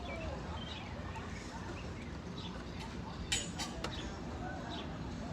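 Faint outdoor background with a steady low rumble and scattered bird chirps, and two short clicks about three and a half seconds in.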